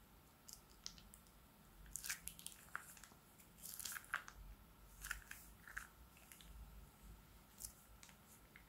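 Slime being squeezed out of a plastic piping bag into a bowl of slime: faint, scattered sticky clicks and squishes, busiest a couple of seconds in and thinning out toward the end.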